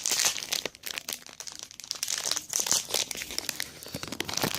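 Plastic blind-bag packet crinkling and tearing as it is pulled open by hand, with irregular crackles.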